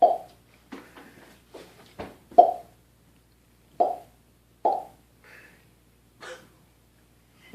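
A series of short hollow pops, about eight at uneven intervals, some much louder than others.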